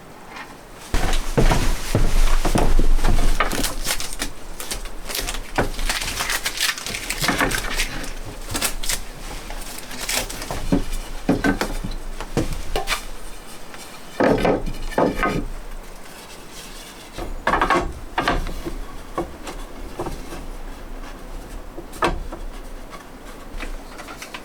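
Wooden boards being handled: irregular knocks, clatters and scrapes of wood on wood, some quick and sharp, a few longer scraping stretches.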